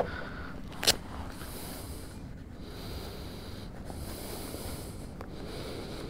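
Riding gloves being pulled on and adjusted: rustling and handling noise, with a sharp click about a second in, over a steady low background hiss.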